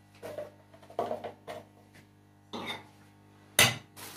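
Sonex pressure cooker lid being fitted and twisted shut on the pot, metal clanking and scraping in several separate knocks, the loudest clank a little before the end.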